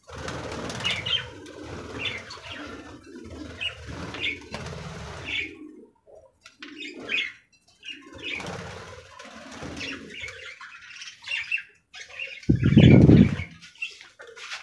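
A flock of budgerigars chirping in short bursts, with wings flapping in the first few seconds. About twelve and a half seconds in comes a brief loud low rumble, the loudest sound here.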